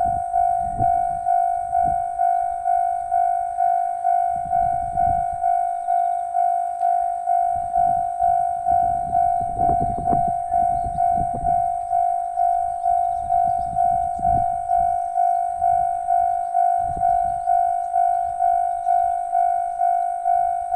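Japanese railway level crossing warning bell ringing, an even ding-ding at about two strikes a second, each strike sharp then fading. Irregular low rumbles come and go beneath it, strongest around the middle.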